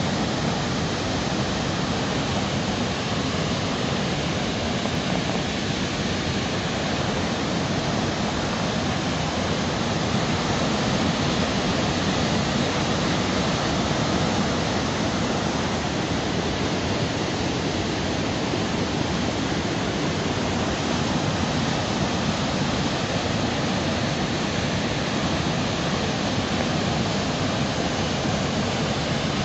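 River in flood: fast, churning floodwater rushing in a steady, loud, unbroken wash of noise.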